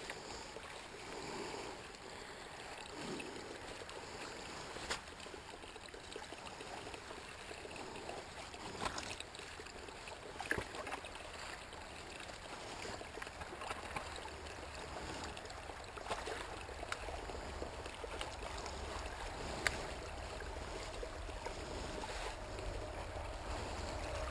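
Small spring-fed brook trickling and gurgling steadily, with a few short splashes and clicks as leaves are pulled out of the water by hand.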